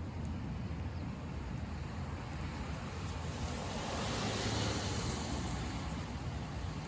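Car driving on a wet road: a steady low rumble with tyre hiss, swelling into a louder spray hiss about four seconds in that fades again by about six seconds.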